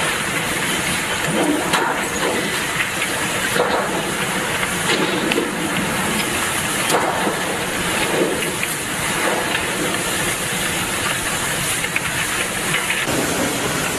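Hurricane wind and driving rain: a loud, steady rushing hiss with small surges.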